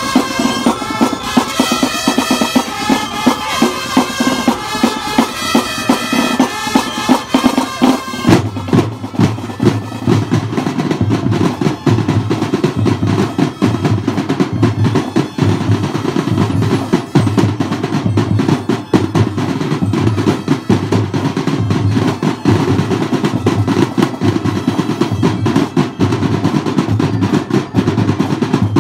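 A drum and bugle corps playing: for about eight seconds a loud melody on wind instruments over the drums, then the melody stops and the drum line carries on alone with snare rolls and pounding bass drums in a fast steady rhythm.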